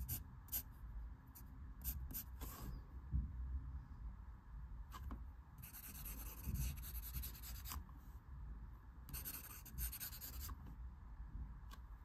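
Wooden pencil scratching across paper as lines are drawn: a few short quick strokes, then two longer strokes of one to two seconds each past the middle.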